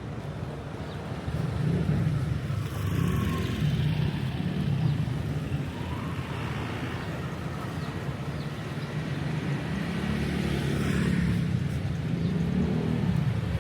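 Street traffic: motor vehicles running past close by, a low engine rumble that swells louder about two seconds in and again in the second half.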